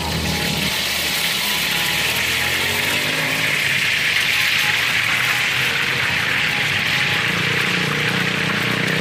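Egg-and-rice-flour batter poured in a thin stream into a wok of hot oil, the oil sizzling hard and steadily; the sizzle builds over the first second. A low steady hum runs underneath.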